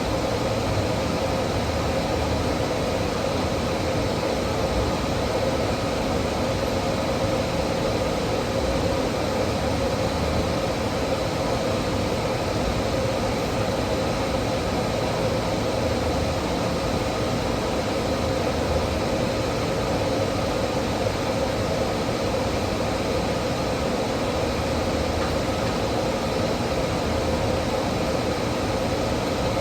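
Steady mechanical hum and hiss with a few faint steady tones, unchanging throughout, with no distinct events.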